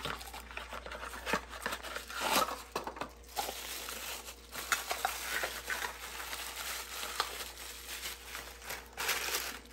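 Clear plastic wrap crinkling as it is handled and pulled off a candle tin, in uneven rustles with louder crinkles about two and a half seconds in and again near the end.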